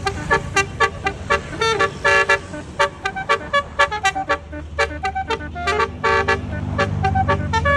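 Tourist bus Basuri 'telolet' multi-tone horn playing a quick tune of short, changing notes, several a second, over the bus's engine running, which grows louder near the end.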